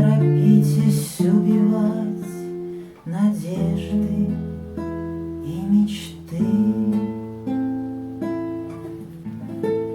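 Acoustic guitar playing the closing bars of a romance, changing chords about once a second and adding a low bass note about three and a half seconds in.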